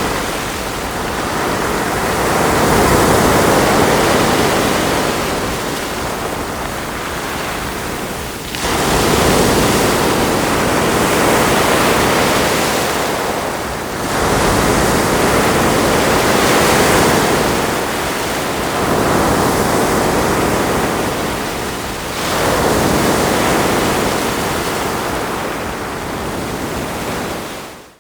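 Ocean waves washing onto a shore: a continuous rush of surf that swells as each wave breaks and eases between them, every five or six seconds. The sound cuts out abruptly at the very end.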